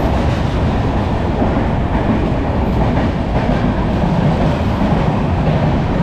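Indian Railways express of LHB coaches running through a station, heard from on board the coach: a steady, loud rumble and rattle of wheels on rail with some clickety-clack.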